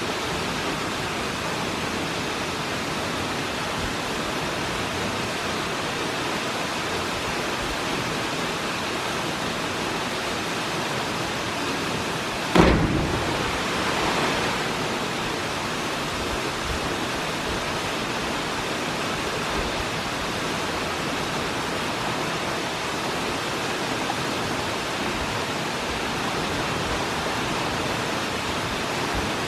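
Steady roar of a high waterfall pouring into a pool. About twelve seconds in, one sudden loud thump, followed a second later by a smaller swell of noise.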